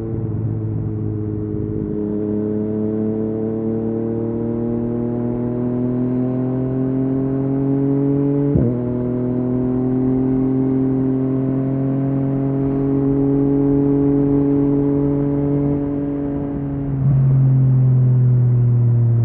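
Yamaha MT-09's three-cylinder engine through an Akrapovic exhaust, pulling steadily with the revs slowly climbing. About eight and a half seconds in there is one quick break and drop in pitch, a quickshifter upshift, then it climbs again and gets louder near the end.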